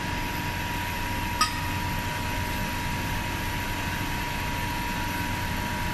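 Hydraulic hole-punching machine running with a steady hum and a constant whine, with one short sharp click about a second and a half in.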